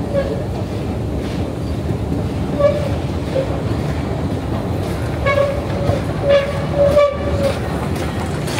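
Subway station escalator running with a steady low rumble. Short, high squealing tones come and go over it, more often in the second half.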